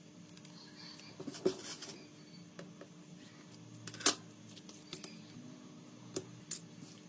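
Scattered sharp clicks and light taps from small parts and tools being handled on a workbench. The loudest click comes about four seconds in, with a few smaller ones near the end.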